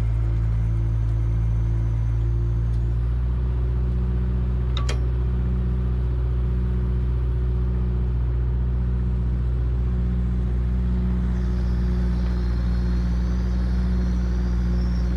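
Mini excavator's engine running steadily under load while driving an auger into the ground, its low drone pulsing slowly and regularly. A single sharp click about five seconds in.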